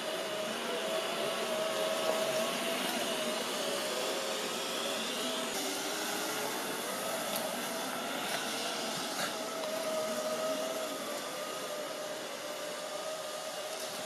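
Ecovacs Deebot robot vacuum running on carpet: a steady whirring with a whine that wavers in pitch, and a few light clicks now and then.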